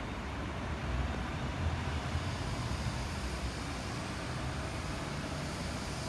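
Steady low rumble of city background noise, with a faint hiss above it.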